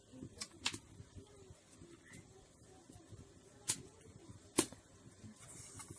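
A hand mixing rice flour into water in a steel bowl, making faint wet stirring sounds. A few sharp clicks against the bowl come through it, the loudest a little past halfway.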